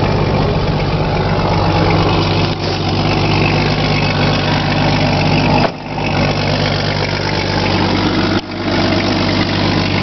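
Jeep Cherokee engine idling steadily as it warms up after a cold start in freezing weather, a low even hum with a steady rushing hiss over it; the sound drops out briefly a couple of times.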